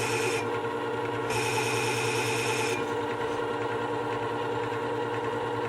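Work Sharp WS3000 sharpener's motor running steadily, spinning a coarse-grit abrasive platen. About half a second in, a steel chisel is pressed against the abrasive, and it grinds with a high hiss for about two seconds. After that only the motor hum goes on.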